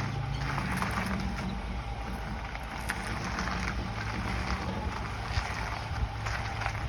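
A 2014 Ford F-150 running: a steady low drone with a rushing hiss over it, the unidentified noise from the truck that its owner is asking about.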